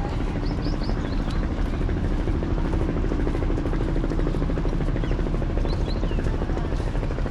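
A steady low rumbling drone with a fast, even flutter, and a few short high chirps over it.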